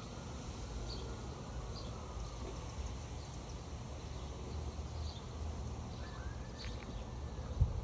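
Outdoor porch ambience: a steady low rumble with faint, short, high chirps about once a second, and a single low thump near the end.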